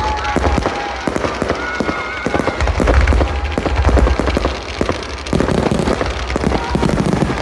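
Fireworks display: a dense run of sharp cracks and bangs with deep booming rumbles, heaviest about three to four seconds in.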